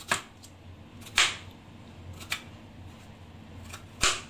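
Kitchen knife cutting down through a cucumber round and knocking on the cutting board: four or five short, sharp knocks about a second apart, the loudest a little over a second in.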